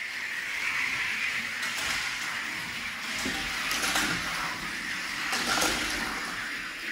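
Die-cast Hot Wheels cars rolling along a plastic racing track: a steady whirring hiss with a few light clicks.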